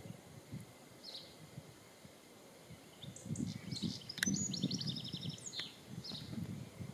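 Songbirds chirping, with a fast trill of quick, even notes a little after four seconds in, over a low background rumble that swells in the middle.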